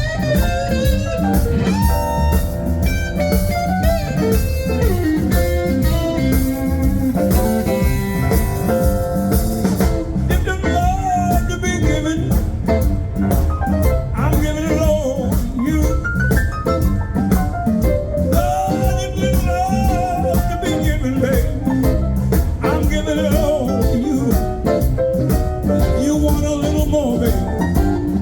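Live blues band playing an instrumental passage: a bending lead line over bass and drums.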